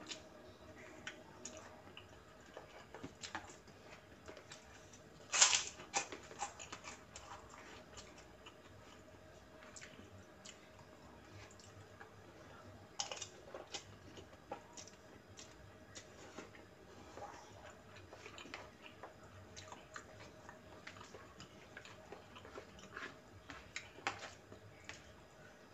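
A person eating soy-sauce fried instant noodles: faint chewing and slurping, with scattered light clicks of a metal spoon and fork against a plastic bowl. One louder, sudden noise comes about five and a half seconds in.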